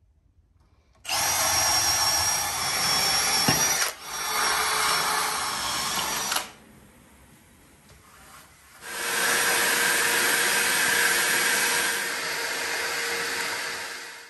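Cordless drill boring masonry holes through a timber bottom plate into a concrete slab. It runs in three bursts, the last about five seconds long.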